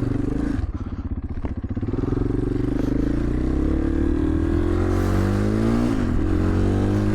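KTM 500 EXC's single-cylinder four-stroke engine pulling away. It runs with a rough, pulsing beat at first, then rises steadily in pitch as the bike accelerates, dips briefly near the end and climbs again.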